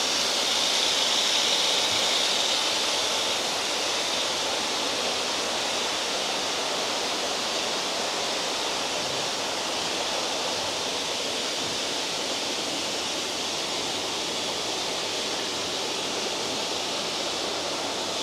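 Steady rushing of running water at a koi pond, a little louder in the first few seconds.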